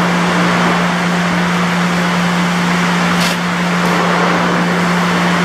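Steady mechanical drone with a constant low hum, and a short click about three seconds in.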